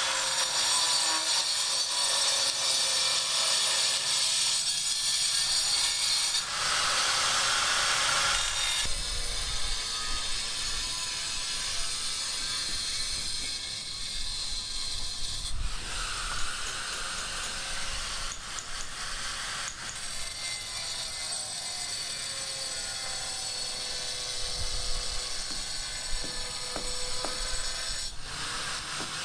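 Construction-site work noise in a string of short clips that cut abruptly from one to the next: a steady, grinding, mechanical tool sound with a few sharp knocks.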